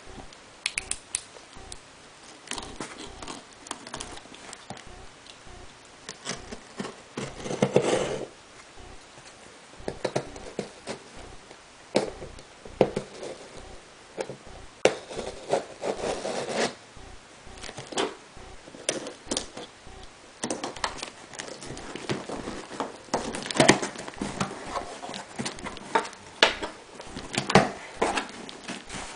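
A cardboard shipping box being opened and its packaging handled: irregular clicks, scrapes and rustles of cardboard and packing material.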